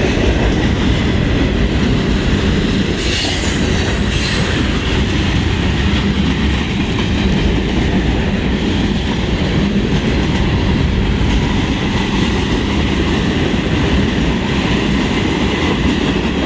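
Freight train cars rolling past close by: a steady loud rumble of steel wheels on rail with clickety-clack, and a brief high screech of wheel squeal about three seconds in.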